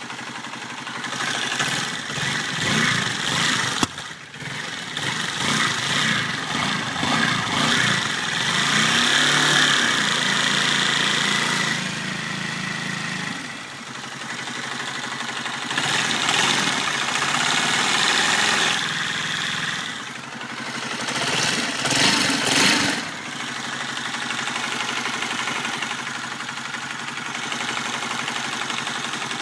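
Honda CBR125's single-cylinder four-stroke engine running close up, its speed rising and falling a few times. It carries the engine noise that the owner cannot diagnose and that appeared after the cam chain tensioner was replaced.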